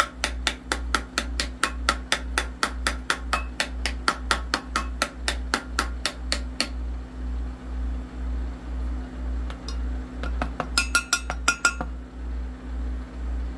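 Repeated sharp tapping on a glittered 20 oz tumbler and the arm it is mounted on, knocking the excess glitter off. A quick run of about four or five taps a second lasts for several seconds, then a shorter, faster burst of taps comes about eleven seconds in.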